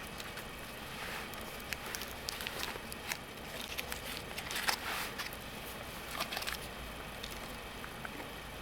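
Wood fire crackling, with scattered small pops and a few short bursts of hissing crackle.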